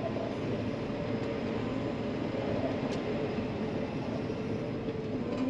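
Tractor pulling a grain cart along the road, its engine a steady drone with faint tones that drift slightly in pitch.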